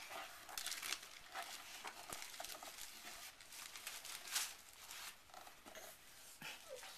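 Packing material crinkling and tearing in irregular rustles as a bike is unpacked from its box, loudest a little under a second in and again about four and a half seconds in.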